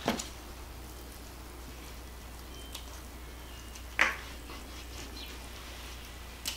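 A wooden spoon and mixing bowl knocking against a disposable aluminium foil pan as cornbread dressing is spread in it: a sharp clatter at the start and a louder one about four seconds in, with a low steady hum between.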